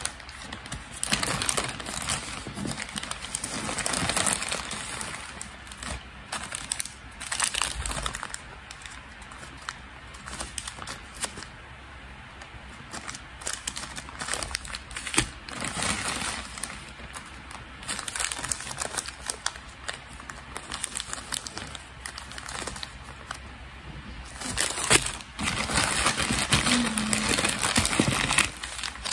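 Thin plastic packaging crinkling and rustling as it is handled: a plastic mailer pouch and a small clear zip bag of beads. It comes in irregular bursts, loudest and most continuous near the end.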